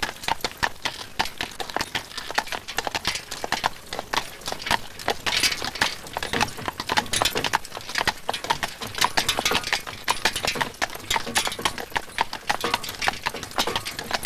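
Hooves of a pair of draught horses clip-clopping steadily on an unpaved road as they pull a wagon.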